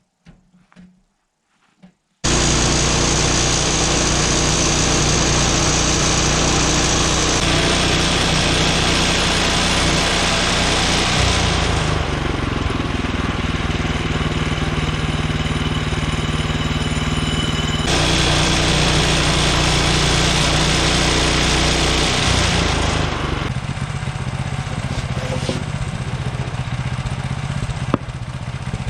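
Woodland Mills HM126 gas-powered bandsaw sawmill running at high speed. It comes in abruptly about two seconds in and stays loud and steady, with its tone shifting a few times along the way.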